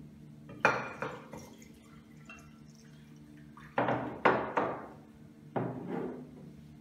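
Water poured from ceramic mugs into glass dishes of white glue, with about half a dozen sharp clinks and knocks of the mugs against the glass dishes and the glass tabletop, the loudest in a cluster about four seconds in.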